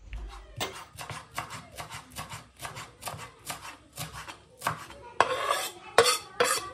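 Chef's knife chopping dill on a bamboo cutting board, quick even knocks about four or five a second. Near the end, the knife blade is scraped across the board several times, pushing the chopped herbs into a glass bowl.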